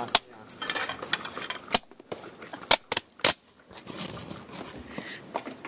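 Kitchen clatter: several sharp clinks and knocks of spoons against cups and bowls as batter is stirred, with soft scraping and rustling in between.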